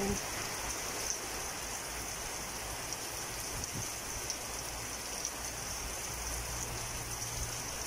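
Steady rain falling, a continuous even hiss with no distinct drops standing out.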